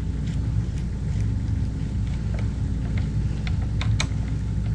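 Steady low hum, with scattered light clicks and taps from small screws and a screwdriver being handled on a plastic model locomotive's truck mounting. The sharpest click comes about four seconds in.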